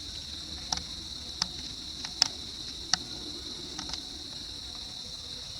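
Steady high-pitched insect chorus, with about five short sharp clicks scattered through it.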